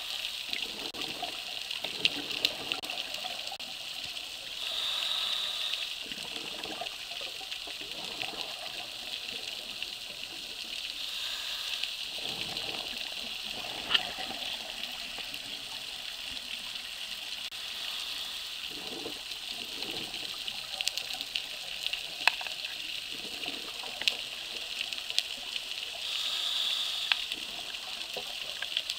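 Underwater sound on a scuba dive: a steady hiss with scattered sharp clicks. A diver's exhaled bubbles rush up in louder swells, about five seconds in and again near the end.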